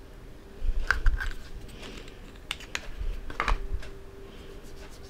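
Hands squeezing a tube of face cream onto the back of a hand and rubbing it in: scattered light clicks and soft rubbing, with low bumps about a second in and again around three and a half seconds.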